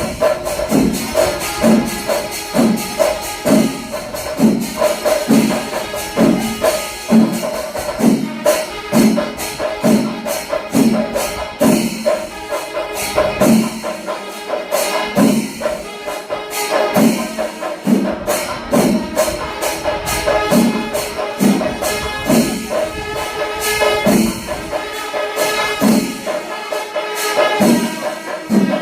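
Kerala temple percussion ensemble (melam) playing: drums beating a steady rhythm of about one and a half strokes a second under continuous clashing of small hand cymbals.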